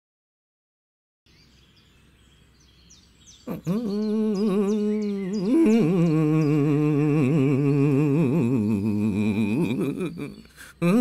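A man humming a tune in long held, wavering notes, starting about a third of the way in, pausing near the end and picking up again. Birds chirp faintly underneath, beginning just before the humming.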